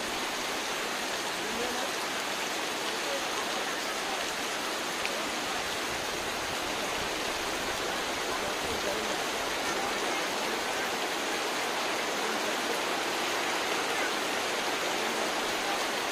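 Heavy rain pouring steadily, an even hiss of drops falling on river water.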